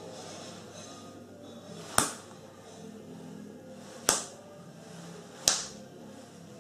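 Three sharp cracks made by hand, about two seconds in, about four seconds in and near the end, each dying away quickly.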